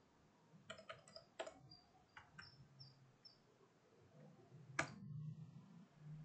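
Computer keyboard keys tapped a few times, quietly and unevenly, then one louder key press about five seconds in: the Enter key running a terminal command.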